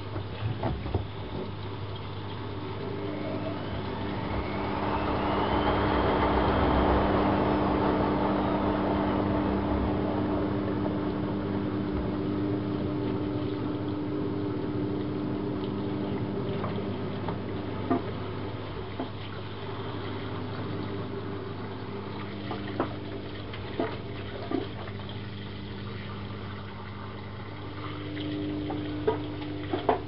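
Privileg Classic 30612 front-loading washing machine filling: water rushing in through the inlet and pouring down inside the door, over a steady low hum. The rush swells for a few seconds in the first third, and a few short clicks come later.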